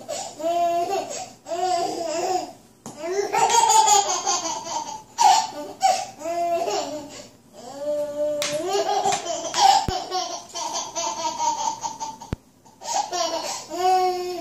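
A baby laughing: repeated high-pitched bursts of giggles and squeals, with brief pauses between the bouts.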